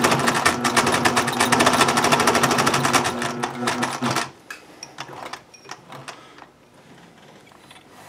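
Industrial zigzag sewing machine stitching through a parachute suspension line, running fast with a rapid even rattle, then slowing and stopping about four seconds in. A few light clicks follow as the line is handled.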